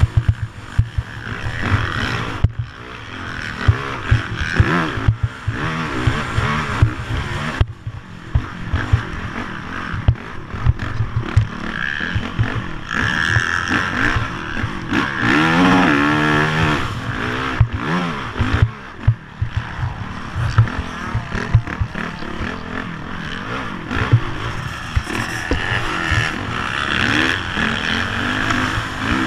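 Dirt bike engine heard from the bike itself while it is ridden hard, revving up and dropping back with throttle and gear changes, the pitch sweeping up and down several times. Frequent knocks and rattles come through as the bike rides over bumps.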